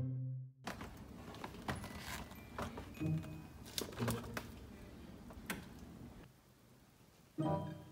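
Scattered clicks and knocks of a filled milk carton being handled and set into a plastic refrigerator drawer, over a steady background noise. Short bursts of background music sit at the very start and near the end.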